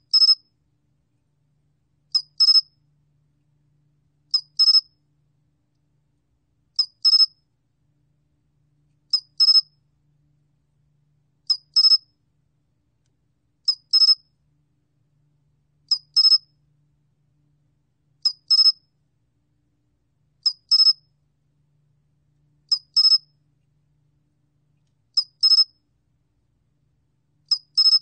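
A 솔귀뚜라미 (sol-gwitturami) cricket chirping, recorded at 21 °C: short, high double chirps repeating evenly about every two and a half seconds.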